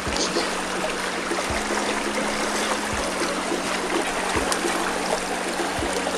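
Shallow brook water rushing and burbling over a stony riffle, a steady, even flow.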